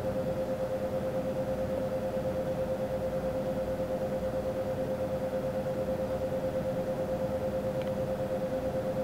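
Steady hum: one unchanging mid-pitched tone over a low background rumble.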